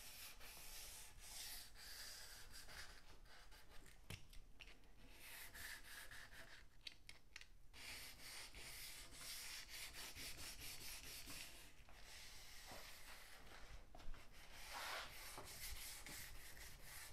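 Faint rubbing of wet 320-grit sandpaper, rolled into a small ball, worked into a narrow groove in a wooden cabinet's finish, in spells of short strokes with brief pauses.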